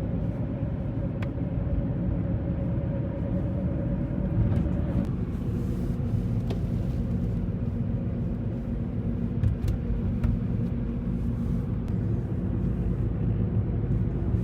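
A car driving, heard from inside the cabin: a steady low rumble of engine and tyres on the road, with a thin hum over it that stops about five seconds in.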